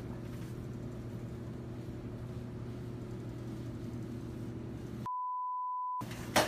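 A steady low hum for about five seconds, then a one-second pure censor bleep that blanks out everything else, followed by a loud crash near the end as the hand truck loaded with beer cases tips over in the snow.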